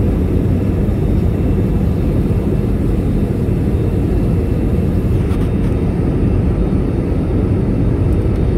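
Steady cabin noise of an Airbus A320 in flight: a loud, even rush of engine and airflow noise, deep and without breaks, heard from inside the passenger cabin during the descent.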